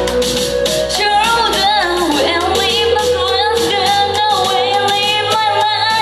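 Loud live J-pop idol music with a steady beat and bass, and young women singing the melody from about a second in.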